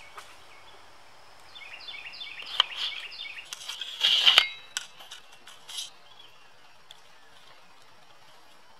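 Close rustling of leaves and twigs, with scattered knocks and clicks as the camera is handled and pushed through tree branches. The loudest rustle comes about four seconds in, and a run of high, falling chirps comes just before it. It goes quiet after about six seconds.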